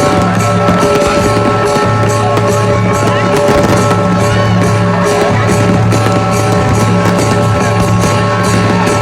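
Loud music with a steady beat over sustained held notes.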